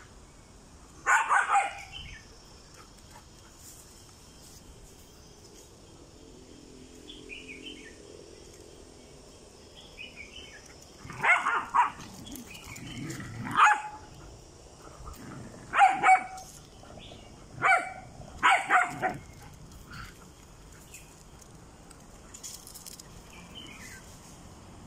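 Dogs barking in short bursts of one to a few barks, with pauses of several seconds between them, while they chase one another in play.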